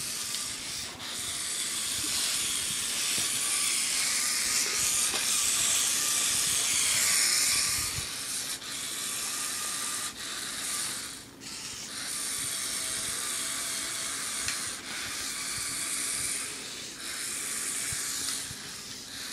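Lego Power Functions electric motors and plastic gear train of a four-wheel-drive remote-control car whirring steadily as it drives, cutting out briefly a few times and starting again.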